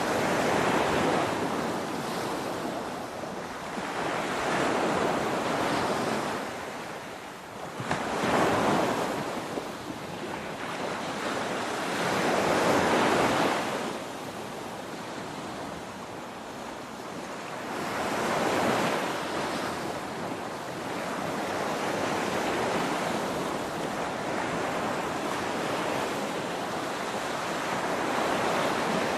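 Ocean waves breaking on a shore, a continuous rush of surf that swells and falls back every few seconds, with a sharper, louder surge about eight seconds in.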